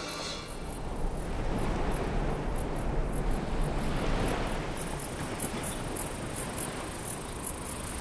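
Insects chirping in short, high-pitched pulses, about four a second, over a steady rushing noise.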